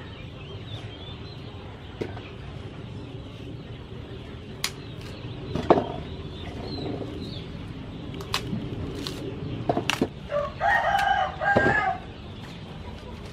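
A rooster crows once near the end, a pitched call lasting about a second and a half, the loudest sound. Before it, fresh ears of corn are husked and their silk pulled off by hand, with scattered sharp snaps and rustling.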